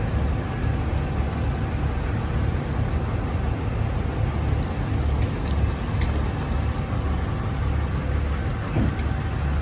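A GMC 3500HD pickup's engine idling steadily: a low, uneven rumble with wind buffeting the microphone.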